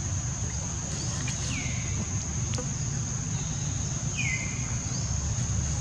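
Insects buzzing in one steady high-pitched drone, with a low rumble underneath. Two short falling chirps cut through, about a second and a half in and again about four seconds in.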